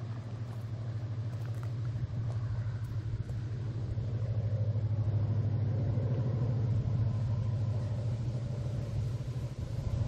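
An approaching freight train: a steady low rumble that grows gradually louder as it nears the level crossing.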